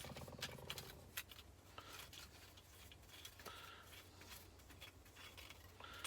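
Faint, fast, even clicking for about the first second as bolts are unscrewed from a car air-conditioning compressor, then a few scattered light metallic clicks.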